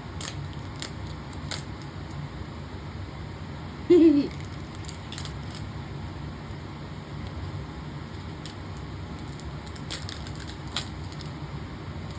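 Plastic blind-box packaging being handled and opened, with scattered crinkles and clicks. A short, loud voiced sound about four seconds in.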